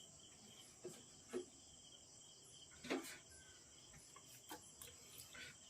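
Near silence: a few soft taps and knocks as peeled boiled tomatoes are handled into a mixer jar, the clearest about three seconds in, over a faint steady high-pitched hum.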